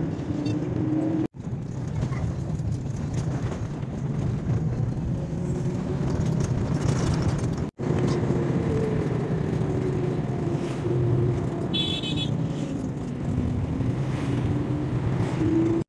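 Passenger vehicle riding along: a steady engine and road rumble whose engine pitch rises and falls with speed, with a short high-pitched toot about three-quarters of the way through. The sound drops out briefly twice.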